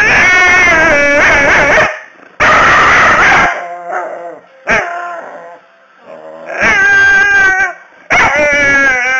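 Staffordshire bull terrier 'talking': a run of loud, drawn-out vocalizations whose pitch rises and falls. There are about five bouts with short pauses between them, and the last one slides downward.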